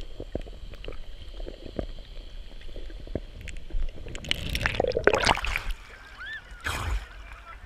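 Water heard through a GoPro's underwater housing as a swimmer does breaststroke: muffled rumble with small clicks and knocks. About four seconds in the camera breaks the surface with splashing and sloshing, then waves wash over the lens once more near the end.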